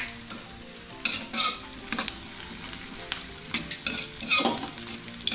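Metal spatula scraping and stirring sliced onions in hot oil in an aluminium wok, with a steady sizzle and a scrape about every second. The onions are being sautéed until fragrant.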